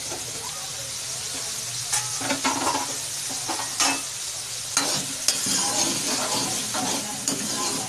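Sliced onions sizzling in hot oil in a metal kadai, frying towards golden, while a metal ladle stirs them. From about two seconds in, the ladle scrapes and knocks against the pan several times over the steady hiss.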